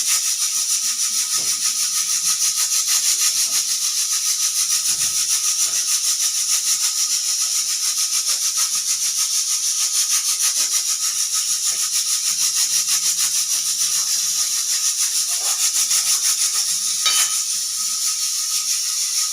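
Pressure cooker venting steam through its whistle: a loud, high hiss that pulses evenly several times a second. A short sharp click comes about seventeen seconds in, after which the hiss eases a little.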